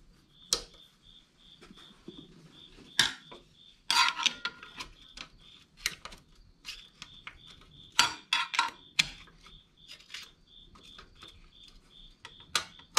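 Screwdriver clicking and scraping against the valve spring and retainer inside the valve chamber of a Snowbird snowblower engine as the spring is levered into place. Scattered sharp metal clicks and short rattling scrapes, heaviest about four and eight seconds in.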